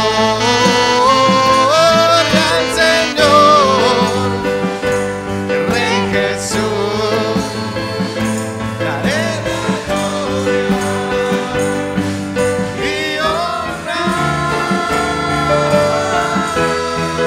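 Live church worship band playing a slow song: acoustic guitar over held chords, with a long melody line that glides up and down.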